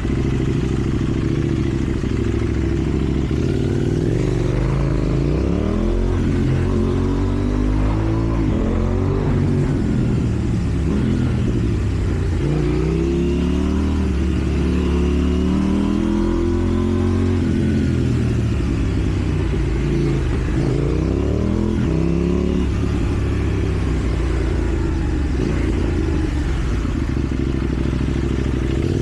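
KTM Duke 790's parallel-twin engine through a slip-on exhaust, accelerating and shifting: the pitch climbs and drops back over and over from about five seconds in, then settles to a steadier run near the end.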